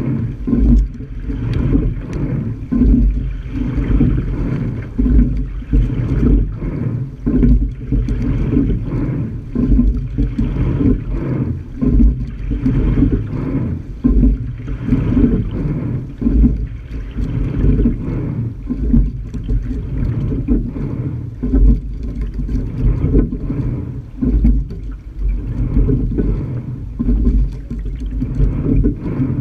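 Sculling shell under way, heard from a camera mounted on its bow deck: a steady low rumble and water rushing past the hull, with repeated knocks from the oars and rigging.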